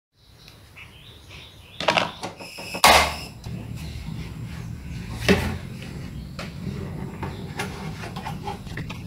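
Hard plastic watering-can parts being handled: a few sharp knocks and clunks, the loudest about three seconds in, over a low steady hum.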